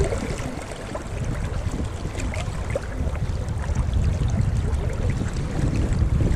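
Flowing river water rushing steadily close by, heavy in the low end.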